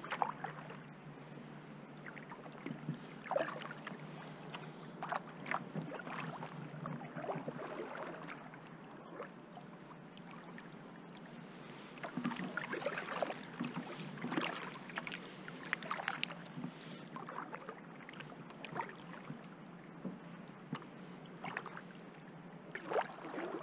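Kayak paddle strokes: the blades dip and pull through the river water, splashing and dripping in uneven runs.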